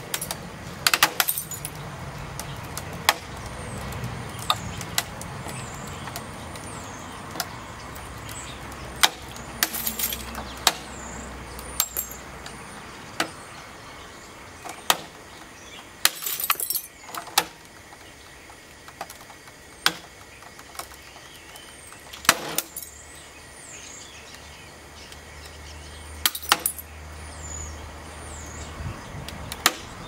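Microwave oven's door glass and sheet-metal casing cracking and creaking under a water-filled inner tube swelling inside it, a dozen or so sharp cracks at irregular intervals a few seconds apart. The glass is breaking up and the cabinet giving way under the rising water pressure.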